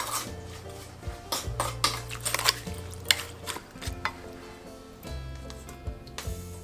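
Wooden spoon stirring and scraping chopped shallots, garlic and chillies in a wet dressing inside a small stainless steel bowl, a quick run of repeated scrapes and clinks against the metal. Soft background music runs underneath.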